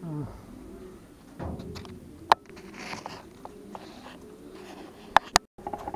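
Racing pigeons cooing softly, with a few sharp clicks: the loudest about two seconds in and two close together about five seconds in.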